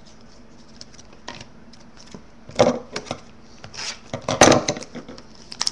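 Trading cards being handled and set down on a wooden desk: a few short rustles and taps, the loudest about four and a half seconds in.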